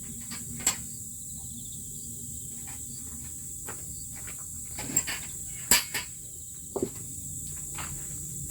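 Crickets chirring steadily at a high pitch, with a few sharp knocks scattered through, the loudest about five and a half seconds in.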